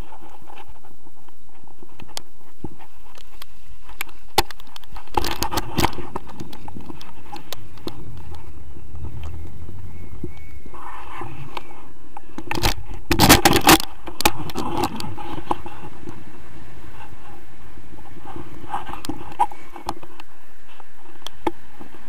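Steady wind rushing over the camera microphone during a tandem paraglider takeoff, with two bursts of scraping and knocking about five seconds in and again around thirteen seconds, as the harnessed pair runs across the snow and lifts off.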